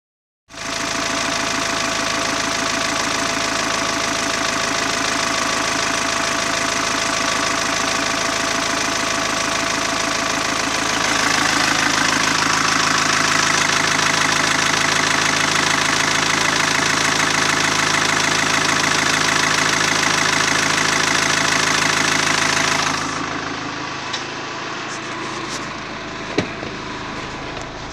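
Holden Colorado's 2.8-litre four-cylinder turbo diesel idling steadily, heard close up in the open engine bay. A little over twenty seconds in, the sound drops and turns muffled as it is heard from inside the cab, with a few sharp clicks near the end.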